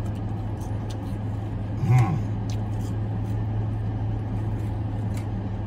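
Mouth-closed chewing of sweet potato fries with faint small clicks, over a steady low hum of the car idling, heard from inside the cabin. A short vocal sound from the eater comes about two seconds in.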